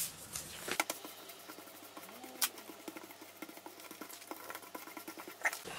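Sheets of printer paper being handled and smoothed together by hand while glued, a faint run of small scratching and rustling clicks with one sharper click about two and a half seconds in.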